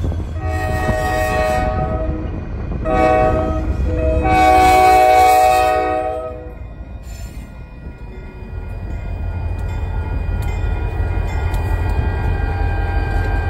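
EMD SD40-2W diesel locomotive sounding its air horn for a grade crossing: a long blast, a short one, then a final long one, the close of the standard crossing signal. Its 16-cylinder 645 diesel engine rumbles underneath and grows louder as the locomotive rolls across the crossing near the end.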